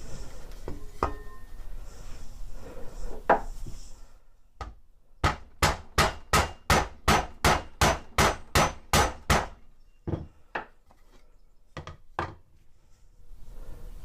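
Hammer lightly tapping on an Atlas lathe countershaft assembly to knock a stuck part loose: a few handling clicks, then a quick, even run of about fifteen taps, three or four a second, followed by a few single taps near the end.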